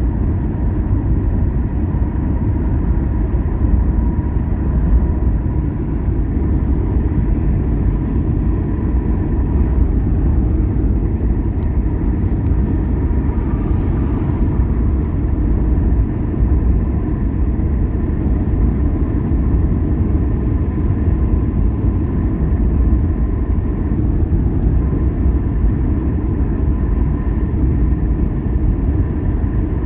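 Steady low road and engine rumble of a moving car, unchanged throughout, with a faint steady whine above it.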